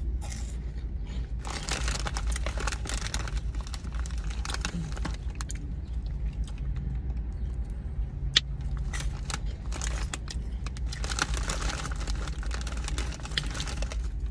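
Crinkling of a snack bag and crunchy chewing of puffed hot fries, in two dense bouts with scattered single crackles between them. Under it is a steady low hum inside the car.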